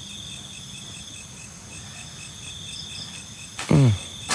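Night insects, crickets, chirping steadily: a high continuous trill with an evenly pulsed chirp around it. About three and a half seconds in, a short voiced sound from a person, falling in pitch, rises over them, followed by a sharp click.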